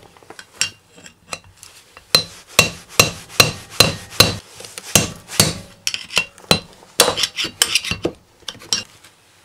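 Hammer striking a screwdriver used as a drift against the old inner bearing race inside a wheel hub, knocking the race out: metal-on-metal blows, light taps at first, then steady strikes about two to three a second, quicker and uneven near the end.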